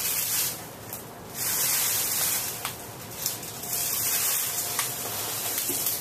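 1986 Hunter Original ceiling fan running, heard mostly as an airy hiss of moving air that swells and fades every second or so, over a faint steady hum.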